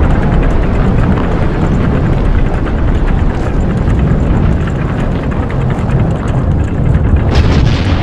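Volcano eruption sound effect: a loud, continuous deep rumble thick with crackling, with a sharper blast about seven seconds in.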